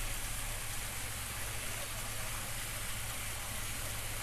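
Steady hiss with a low hum beneath, unchanging throughout.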